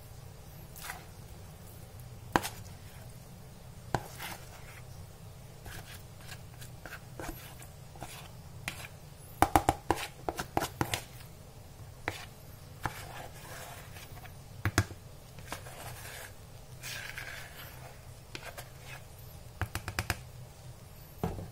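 Thick nugget dough being scraped out of a plastic bowl into a stainless steel bowl with a spatula: scattered knocks and taps of the spatula and bowl rims against the steel bowl, loudest in a quick run of taps about halfway, with soft scraping and a low steady hum underneath.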